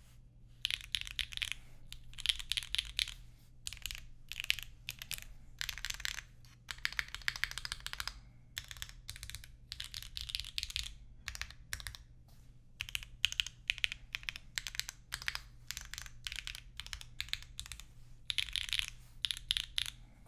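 Typing on a mechanical keyboard with Gateron Sillyworks switches on an aluminum float plate: quick runs of key presses in bursts of a second or two, with short pauses between them.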